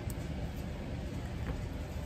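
Steady low rumbling background noise, with a couple of faint light taps from a pen and notebook being handled.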